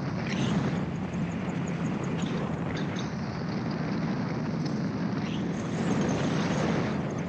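Gyroplane in cruising flight: its engine and propeller drone steadily, with no change in pitch.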